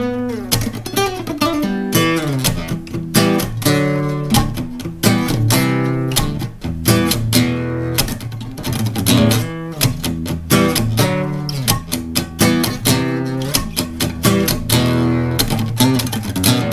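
Acoustic guitar played solo: a busy run of quick picked notes over ringing low bass notes, without pause.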